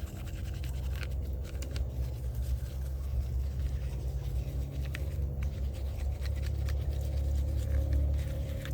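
A steady low machine hum, with light clicks and scrapes scattered through it.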